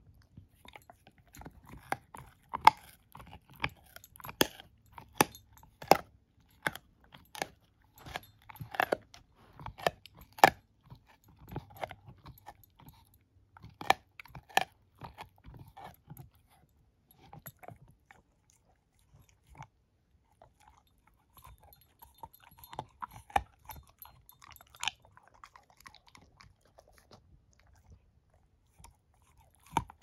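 A puppy gnawing a chew stick: irregular sharp crunches and cracks, thick for the first half. They stop for a few seconds past the middle, then pick up again more sparsely and softly.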